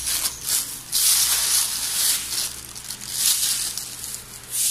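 Thin plastic shopping bag and plastic-wrapped meat packs crinkling and rustling as hands rummage through the bag and handle the packs, in repeated loud bursts.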